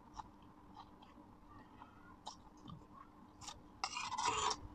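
Close-miked chewing of a mouthful of lettuce salad, soft wet mouth clicks. About four seconds in, a louder scrape of a fork across the steel plate.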